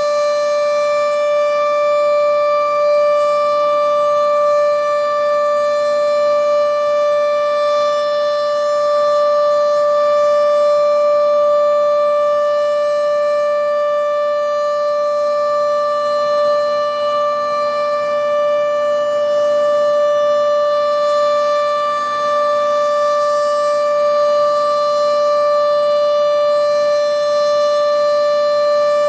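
Sentry 14V outdoor storm warning siren sounding a loud, steady single tone that holds one pitch throughout, with slight swells in loudness.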